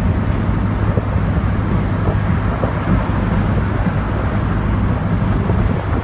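Loud wind noise on the microphone in a 1992 Corvette C4 convertible driven top-down at highway speed: a steady low rumble and buffeting, with road and tyre noise underneath.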